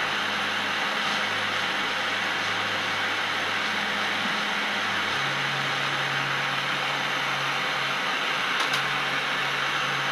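Propane torch burning with a steady hiss, with low held notes of background music changing pitch underneath and a light click about three-quarters of the way through.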